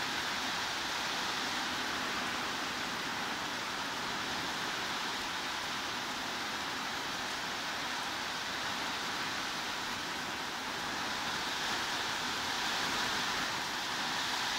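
Heavy rain falling in a steady, even hiss, with no single drops or thunder standing out.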